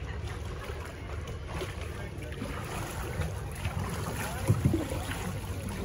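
Canoe paddles stroking and splashing through flowing creek water as canoes pass close by, with a couple of louder paddle knocks and splashes about four and a half seconds in. Faint voices in the background.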